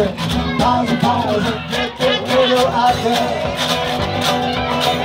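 Live band music: strummed acoustic guitar over a steady beat.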